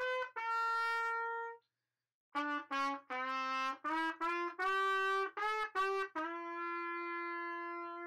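Background music: a lone trumpet plays a tune of short notes. It breaks off briefly about two seconds in, then goes on and ends on a long held note.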